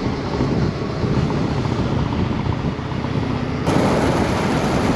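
Honda Shadow ACE 750 cruiser's V-twin engine running steadily under way, mixed with wind rushing past the microphone. About three and a half seconds in the sound shifts abruptly, becoming brighter and a little louder.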